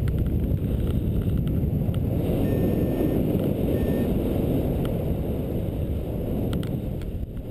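Wind rushing and buffeting on the microphone of a camera carried on a paraglider in flight, a steady low rumbling noise.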